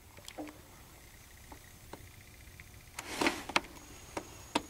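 Faint handling noise: a few scattered light clicks and a short rustle about three seconds in.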